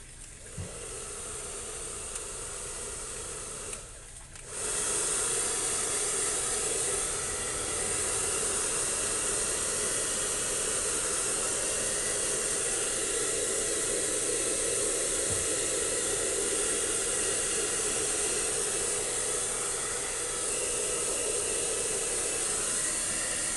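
Handheld electric hair dryer blowing air on a dog's fur, a steady hissing rush over a motor hum. It runs softer at first, cuts out briefly about four seconds in, then comes back louder and runs evenly.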